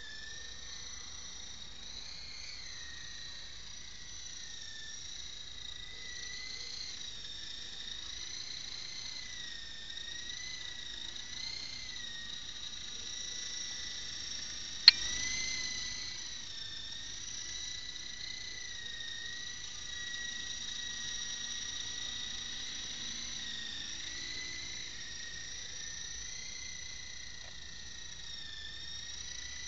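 Radio-controlled model helicopter in flight: a steady high-pitched rotor and motor whine that wavers up and down in pitch as the throttle changes. A single sharp click about halfway through.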